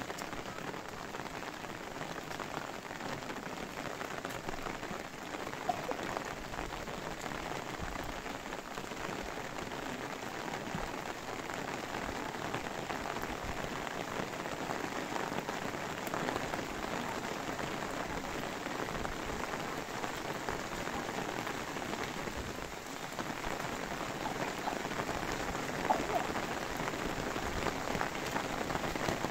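Steady rain falling on an umbrella's fabric canopy, a dense hiss of fine drop hits, with a couple of louder single drop taps, the sharpest near the end.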